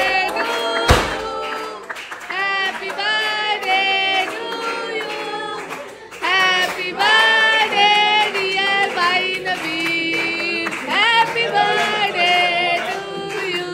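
A song with voices singing over music, in held melodic notes; about a second in, a single sharp bang from a confetti popper going off.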